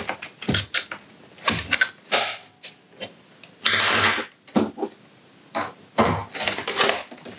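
Hard plastic clicking and scraping as the snap-fitted top cover of a Roborock S50 robot vacuum is pried and worked loose by hand. There are irregular clicks and rubs, with a longer scrape about four seconds in.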